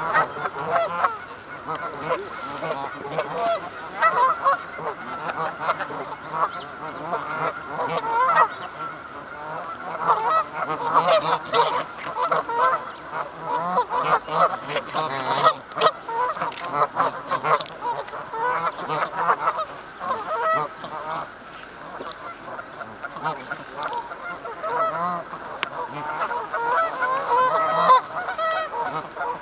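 A group of geese honking, with many short calls overlapping almost without a break.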